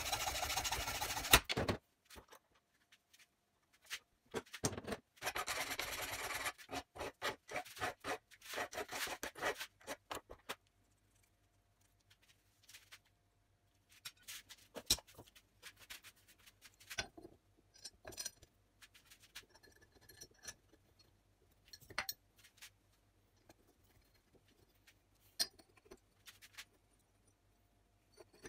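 Hand hacksaw cutting a steel bar clamped in a bench vise: bursts of sawing, then a run of quick strokes, in the first ten seconds. After that come scattered light clicks and clatter of metal parts being handled.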